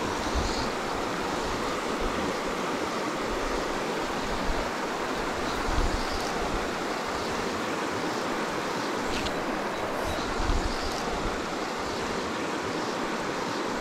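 Shallow creek riffle rushing steadily over stones, with a low rumble of wind on the microphone now and then.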